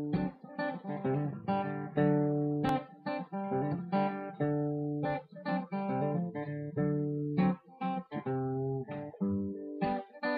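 Background music: a guitar playing a run of plucked and strummed notes.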